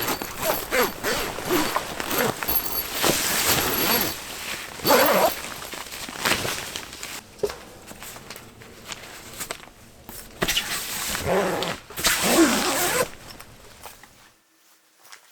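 Zipper being pulled in a series of strokes, with rustling of fabric between them.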